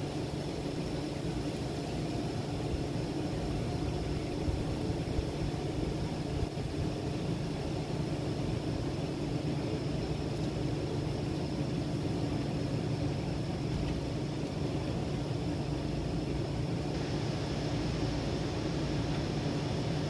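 A steady low mechanical hum with constant droning tones over a background hiss. The hiss grows slightly stronger near the end.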